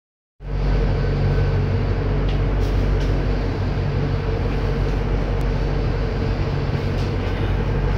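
Ship's engines running steadily, a low droning hum heard inside the wheelhouse, with a few faint ticks.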